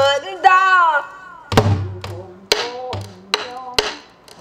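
A woman sings a Korean folk-song phrase in a pansori-style voice that falls in pitch and ends about a second in. Then a buk barrel drum is struck with a wooden stick, four strokes a little under a second apart, each a sharp crack with a low thud.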